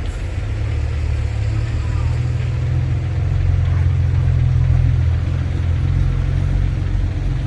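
Heavy diesel engine of earthmoving machinery running steadily with a deep drone, growing a little louder through the middle.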